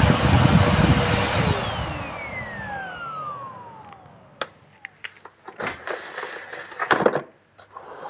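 Bosch Serie 4 (BGLS4X300) bagged vacuum cleaner's 600 W motor switched off and spinning down: the running noise fades away over about four seconds while its whine falls steadily in pitch. After that come a few light clicks and knocks.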